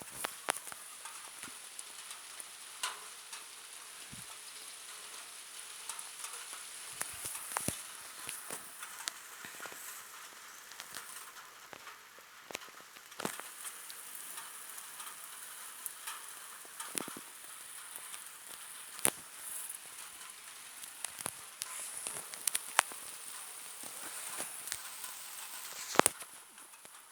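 Rain falling steadily: an even hiss with frequent sharp taps of drops striking surfaces, a few of them louder.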